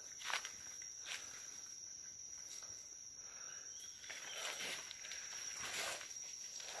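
Footsteps crunching through dry leaf litter and brushing past undergrowth, a few louder rustles about a third of a second in and again about four and a half and six seconds in, over an insect's steady high, unbroken drone.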